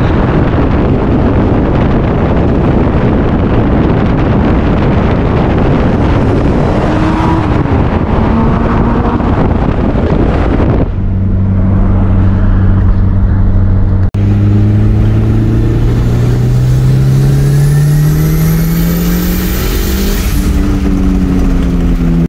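Turbocharged 4G63T four-cylinder car engine under hard acceleration. For about the first half it is a dense rush of engine and wind noise. Then a clearer engine note climbs steadily in pitch with a faint high whistle rising alongside it, and the revs drop suddenly near the end, as at a gear change.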